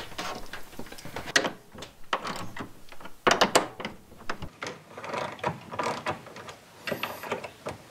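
Screwdriver work on the door hinge of a Norcold RV refrigerator: a run of small, irregular metal clicks and scrapes as the hinge screws are turned and the hinge is adjusted, with a cluster of sharper clicks about three seconds in. The hinge is drooping slightly and is being raised so the door latch catches better.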